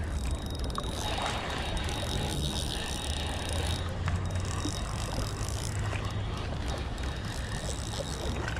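Wind buffeting the microphone: a steady rush of noise with a fluctuating low rumble and a couple of faint clicks.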